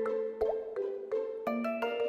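Upbeat background music: bright plucked or mallet-like notes in a bouncy melody, several notes a second.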